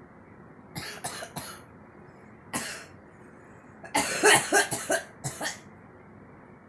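A girl coughing in fits: three quick coughs, then a single cough, then a longer, louder run of several coughs in the second half.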